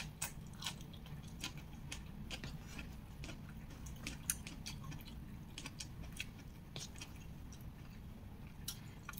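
Close-miked chewing of a mouthful of fern shoots with squid sambal: irregular wet mouth clicks and smacks, several a second, over a faint low hum.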